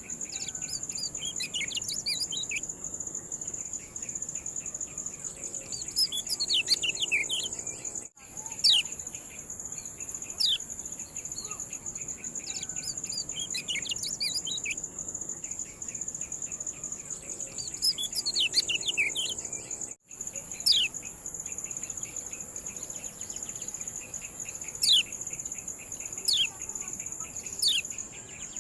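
Kecial kuning giving repeated sharp 'ciak' calls: quick downward-sweeping chirps, singly and in rapid clusters, over a steady high-pitched drone. The sound cuts out briefly twice, at the joins of a looped recording.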